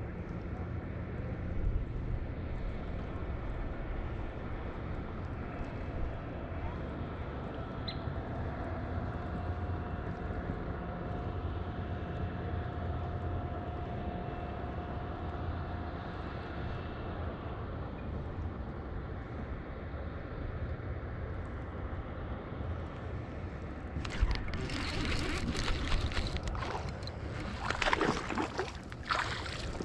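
Steady low hum of a boat motor as the boat moves slowly, with a faint steady whine for several seconds midway. About six seconds before the end, close, loud rustling and clicking take over as a baitcasting reel is cranked in with a fish on the line.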